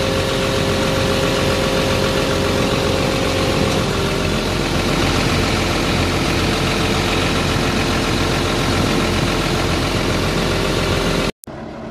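Diesel engine of a Wirtgen W1000F cold milling machine running loudly and steadily, with a steady whine over it. One of the whine's tones drops out about four seconds in.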